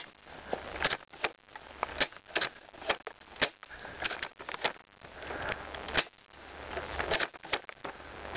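Irregular sharp crackles and snaps, a few a second, between stretches of rustling, as of someone moving through dry brush and leaves.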